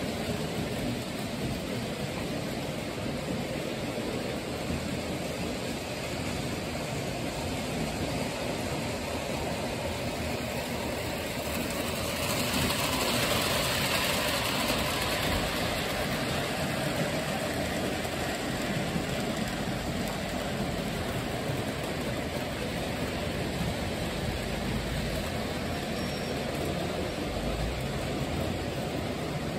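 Steady background hiss, with the rolling rattle of a model train's wheels on the track swelling as a train of red passenger coaches passes close by about halfway through, then fading back.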